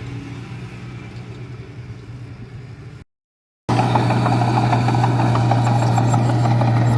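Heavy diesel engine of earthmoving machinery running steadily. About three seconds in the sound drops out completely for a moment, then returns louder and closer, with a dense rattle over the engine's steady drone.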